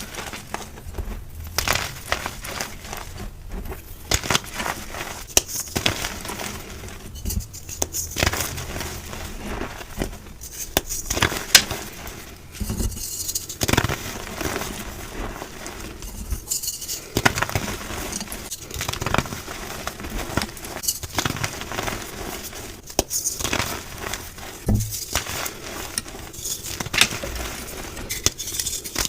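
Blocks of gym chalk being crushed and crumbled: dense, irregular crunching and crackling with frequent sharp snaps and brief pauses between squeezes.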